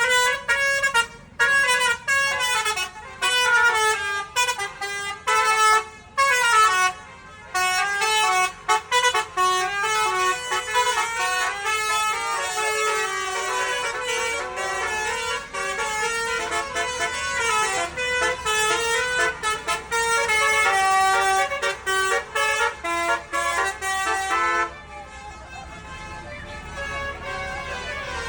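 Bus 'telolet' horn: a set of electric multi-tone horns playing a fast melody of short, changing notes. About 25 seconds in, the sound drops to a quieter, duller tone.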